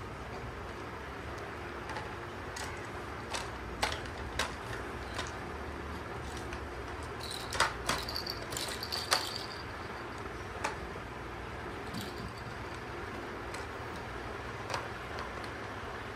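A plastic toy car handled and knocked on a tiled floor: scattered light clicks and knocks, busiest about halfway through, over a steady low background hum.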